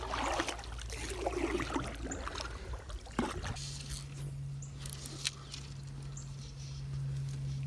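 Water splashing and trickling off a kayak paddle, with a few light clicks about three seconds in; a steady low hum comes in shortly after and holds to the end.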